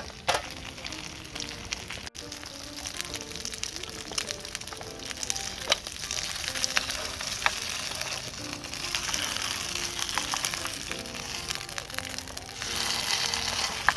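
Gyoza frying in a pan, a steady sizzle with a few sharp pops that swells about nine seconds in and again near the end. Soft background music with a simple melody plays underneath.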